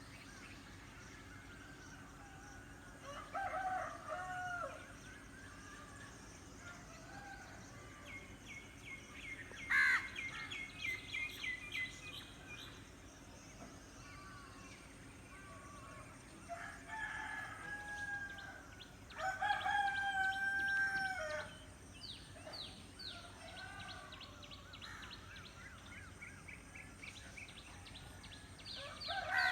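Roosters crowing several times, the longest crow lasting about two seconds, with small birds chirping in quick runs of repeated notes.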